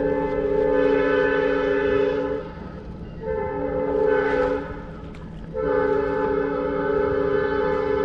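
Train air horn sounding a steady chord of several notes in three blasts: a long one, a shorter one after a brief gap, and another long one starting about halfway through.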